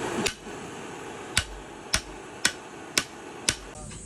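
Hammer blows on red-hot steel bar resting on a steel block anvil, forging the flattened end of a pry bar: six sharp strikes, most about half a second apart.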